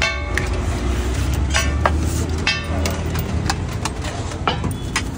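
Stainless-steel utensils clinking and ringing: a ladle striking the rim of a large steel pot, then steel plates knocking together, about eight sharp clinks in all. Under them runs a steady low hum of road traffic.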